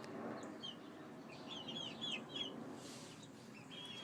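Young chickens peeping: a run of short, high cheeps, bunched mostly in the middle, over faint low clucking.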